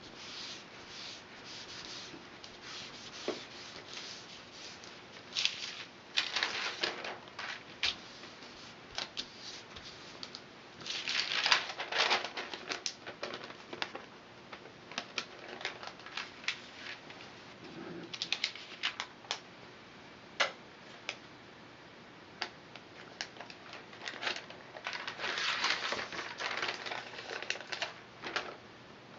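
Sheets of paper carrying flattened barley straw strips being handled: rustling of the paper in several bursts, with scattered sharp clicks and taps.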